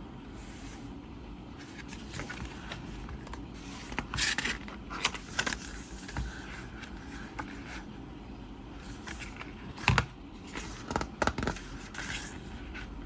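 Hands handling a deluxe-edition CD package: intermittent scraping and rustling with light clicks, and one sharp knock about ten seconds in.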